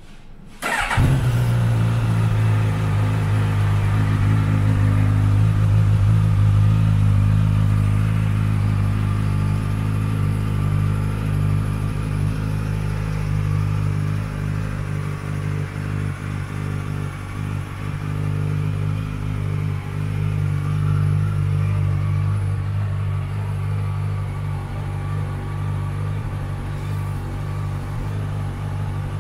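2017 Suzuki GSX-S1000's 999 cc inline-four engine starting with a brief crank of the starter, catching within a second, then idling steadily.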